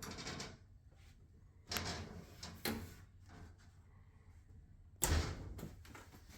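Red oak cabinet doors being swung and pushed shut against their magnetic catches, giving a few sudden wooden knocks. The loudest comes about five seconds in.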